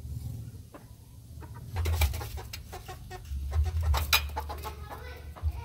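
A chicken clucking, among clusters of sharp scuffling noises about two and four seconds in, over a low rumble.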